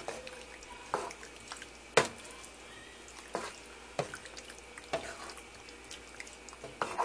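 A spoon stirring rigatoni through a thick, creamy Alfredo sauce in a pan: wet clicks and light knocks of the spoon, about one a second, the loudest about two seconds in.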